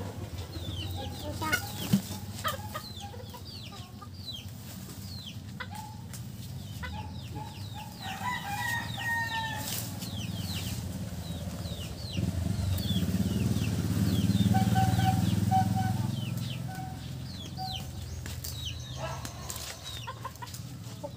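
Chickens in a backyard coop: a rooster crows once about eight seconds in and hens cluck in short repeated notes a little past the middle, with many short high chirps throughout. Underneath, a low rumble swells and fades between about twelve and seventeen seconds.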